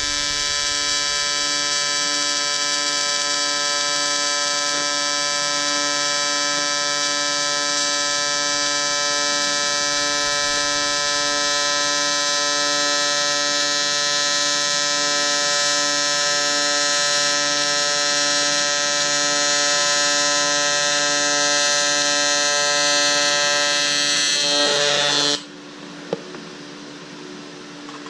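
TIG welding arc buzzing steadily as a bead is laid, then cutting off abruptly about 25 seconds in when the arc is stopped.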